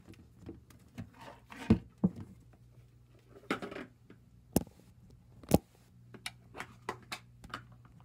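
Irregular clicks, rustles and knocks of handling and movement around a wire pet pen on a wooden floor. Two sharp knocks about a second apart near the middle are the loudest.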